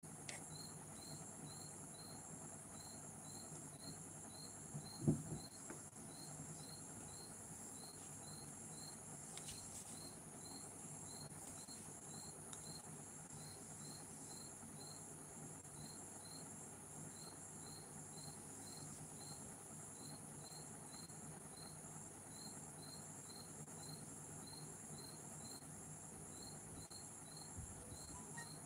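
Faint crickets chirping in an even rhythm, about two to three short chirps a second, over a steady high hiss. A single low thump about five seconds in.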